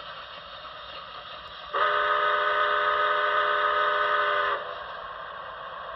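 Alternate steam whistle (function F22) played by the BLI Paragon 4 sound system in an HO-scale Commodore Vanderbilt model locomotive: one long, steady multi-note chime blast of about three seconds, starting about two seconds in, over a steady hiss.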